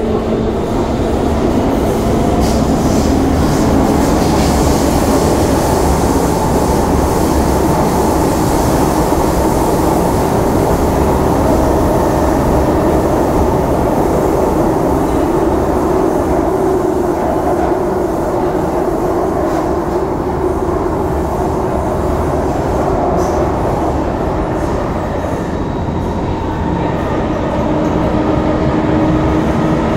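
SMRT C151 metro train heard from inside the carriage, running through a tunnel. Its traction motor whine climbs in pitch over the first few seconds and then holds steady over a continuous rumble of wheels and rails. Near the end the motor tones shift.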